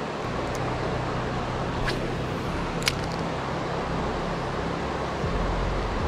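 Small trout stream flowing, a steady rushing hiss with a low steady hum underneath. Two light clicks about two and three seconds in.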